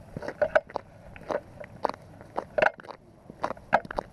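Boot footsteps crunching and scraping on lake ice at a steady walking pace, one or two steps a second.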